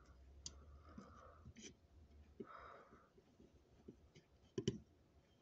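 Very faint handling sounds of a hand screwdriver turning a screw out of a diecast model car's base: small clicks and soft scrapes, with faint breathing. A few sharper clicks come close together near the end.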